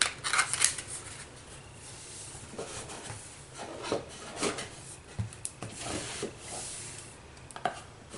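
Cardboard advent calendar drawers being handled: scattered light knocks and rubbing of cardboard as small boxes are touched and pulled.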